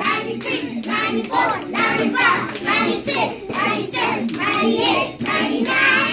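A group of young children chanting together in a steady rhythm, with hand claps among the voices.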